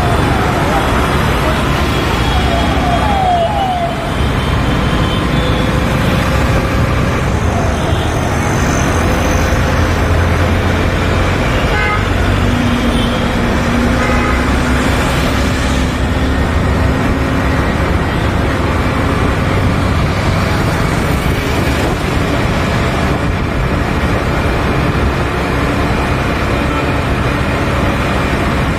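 Steady wind, road and engine noise from a motorcycle riding through dense city traffic, with other vehicles running alongside. A few short horn toots sound from the traffic around the middle.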